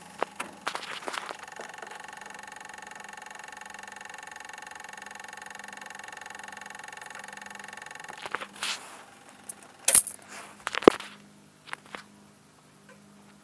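A steady electrical whine with a faint repeating low pulse, from the battery area of a 2008 Hyosung GT250R where the owner hears an unexplained clicking. It stops about eight seconds in, and a few sharp metallic clicks and clinks follow.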